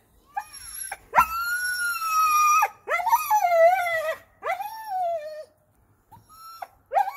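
A dog whining and howling in a string of drawn-out calls, each sliding down in pitch as it ends, with short pauses between them.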